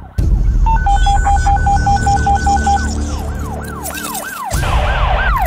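Emergency-vehicle siren: a fast two-tone high-low alternation for about two seconds, then quick repeated rise-and-fall sweeps, about three a second, over a low rumble.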